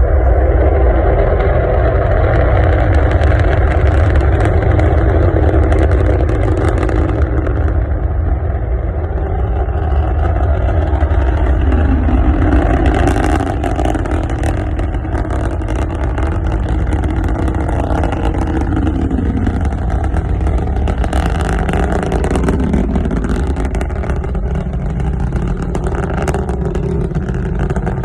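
Rocket engines during ascent: a loud, continuous deep rumble. Crackling becomes more prominent from about halfway through as the roar eases slightly.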